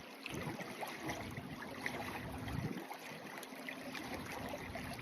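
A stream running fast under a footbridge, a steady rushing and babbling of water, louder than usual because the water is running so quickly.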